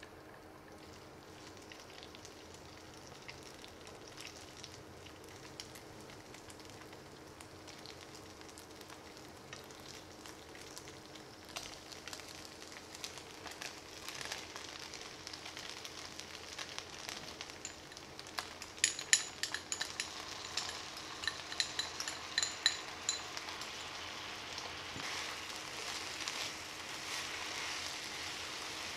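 Liver and garlic chives stir-frying in oil in a frying pan. The sizzle is faint at first and grows louder towards the end as the chives go in and are stirred. About two-thirds of the way through there is a quick run of sharp, ringing clinks.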